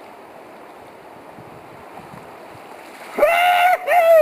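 Steady rush of river water, then about three seconds in a man lets out two loud, drawn-out shouts, each rising and then falling in pitch.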